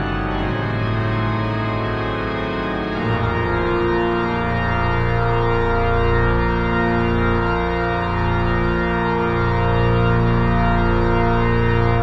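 Pipe organ music: full, sustained chords, moving to a new, slightly louder chord about three seconds in.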